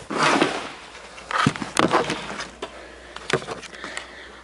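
Handling noise from a camera being moved about and set down: rustling against the microphone with a few sharp knocks.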